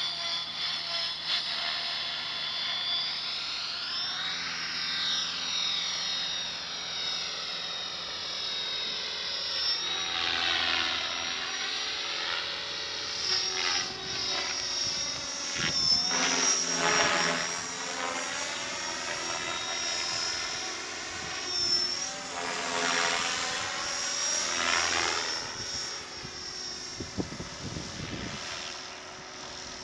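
Blade 550X electric RC helicopter in flight: a steady high motor and gear whine over the rotor noise, which swells and sweeps up and down in pitch in waves as the helicopter passes and banks. Near the end it grows fainter as it climbs away, with some low wind buffeting on the microphone.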